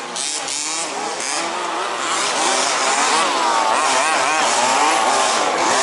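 Several 1/5-scale two-stroke RC buggy engines racing at once, revving up and down in overlapping whines. They grow louder about two seconds in.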